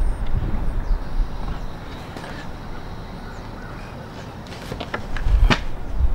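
Hydraulic oil being poured from a pail into a funnel on an excavator's hydraulic tank, with a low rumble in the first second. A few light clicks follow, then a sharp knock about five and a half seconds in.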